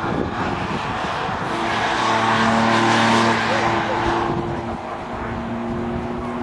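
Jaguar race car passing at speed. Its engine holds a steady note, swells to its loudest about three seconds in, then fades as it moves away.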